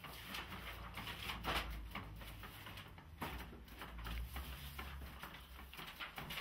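Papers rustling and being handled, with irregular soft rustles and light knocks over a low steady hum.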